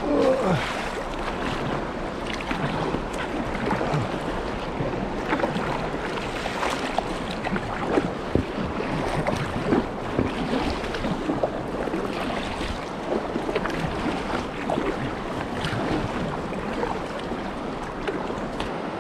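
River water rushing over a small drop in the riverbed: a steady wash broken by many short splashes.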